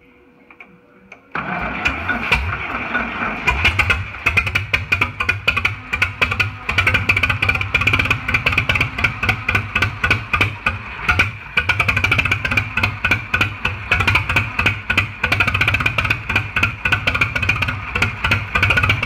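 International Harvester TD9 bulldozer's gasoline-start diesel engine, running on gasoline for its first fire. It is cranked with a sudden steady sound about a second in, catches a couple of seconds later, then keeps running with a rapid, uneven, sharp clatter from the open valve gear.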